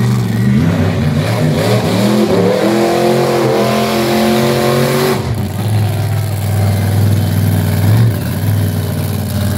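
Monster truck engine revving. Its pitch climbs for about three seconds, drops off sharply about five seconds in, and then the engine runs steadily at lower revs.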